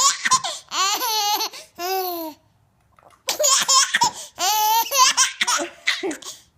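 Baby laughing in two long fits of squealing, wavering giggles with a short pause between them, set off by mouth-popping sounds. A single sharp pop comes about four seconds in.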